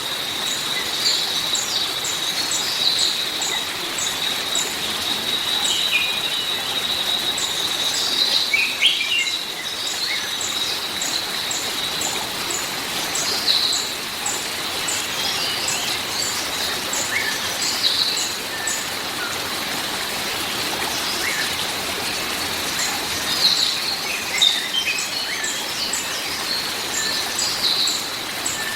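Steady rain with birds chirping and calling over it. A thin, steady high tone and a regular run of short high ticks go on throughout.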